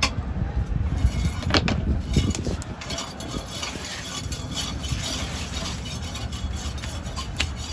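Knife scraping and slicing through swordfish skin, and the heavy fish rubbing and sliding on a wooden cutting board as it is turned, with a few knocks early on, all over a steady low rumble.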